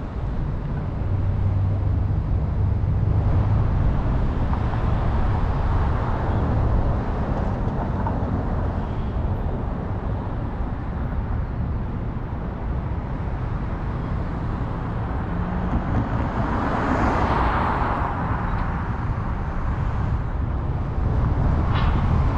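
Road noise of a car being driven through city traffic: a steady rumble of tyres and engine, swelling louder for a couple of seconds about three-quarters of the way through.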